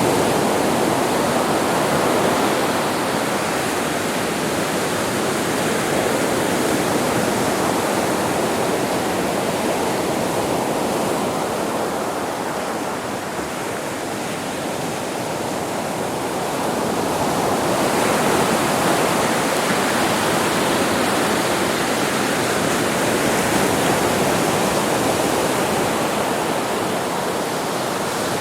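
Ocean surf washing onto a beach: a continuous rushing of waves that eases off about halfway through, then swells up again.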